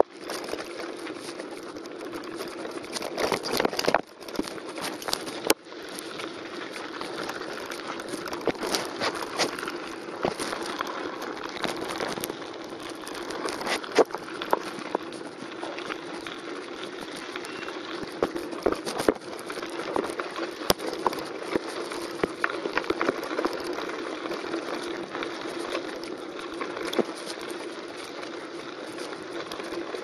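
Mountain bike rolling downhill over loose gravel and dry packed dirt: a steady crunch and rumble of the tyres, with frequent sharp knocks and rattles as the bike jolts over bumps and stones.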